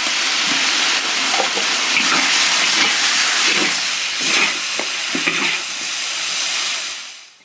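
Chicken and potatoes sizzling in a large wok over a wood fire while a metal spatula stirs and scrapes through them, with several short scrapes over the hiss. The sound fades out near the end.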